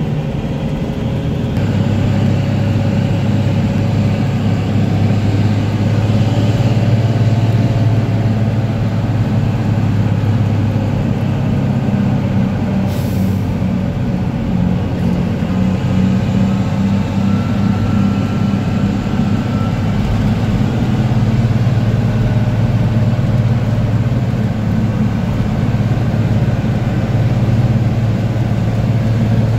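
Diesel engine of a 1975 Dodge Big Horn tandem semi tractor pulling down the road, heard from inside the cab as a loud, steady low drone whose pitch shifts a few times. A brief hiss of air about halfway through.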